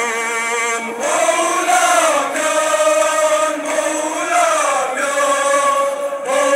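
Male voices chanting a Kashmiri noha, a Shia mourning lament, in long held notes that slowly rise and fall.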